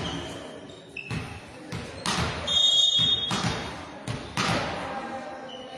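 A volleyball bounced on a sports-hall floor several times, about a second apart, each bounce ringing on in the hall, with a short whistle blast about halfway through.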